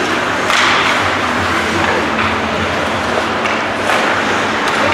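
Steady din of a game in a large hall, with several sharp thuds spread through it, the loudest about half a second in.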